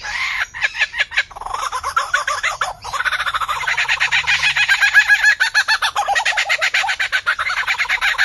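A bird calling in a rapid, continuous run of varied notes, about eight to ten a second, shifting in pitch throughout, with two short breaks in the first three seconds.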